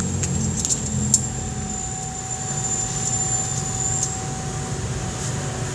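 Yamaha Aerox scooter engine with an aftermarket JVT titanium exhaust, running at idle. Its low rumble drops away about a second and a half in, leaving a steady hum with a faint high whine and a few light clicks.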